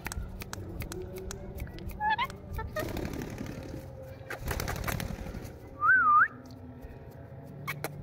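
Indian ringneck parrot calling: a brief warbling chirp about two seconds in, then a short clear whistle that rises and falls twice near six seconds. A rustling noise fills the middle, with scattered sharp clicks.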